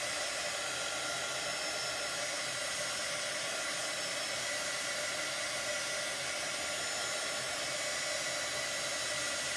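Handheld electric dryer blowing steadily, a rush of air with a steady motor whine, drying freshly applied chalk paste on a silkscreened board.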